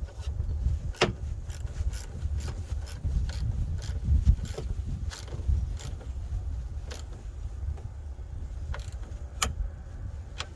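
Scattered metallic clicks and taps of hand tools working on the battery terminals and hardware, about one or two a second, irregular. Underneath runs a low, uneven rumble of wind on the microphone.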